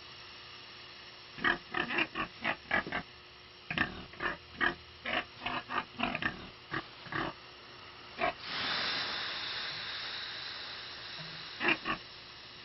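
Pig grunting in a quick series of short grunts, then a hiss of steam from water ladled onto hot sauna stones that fades over about three seconds, then two more grunts near the end.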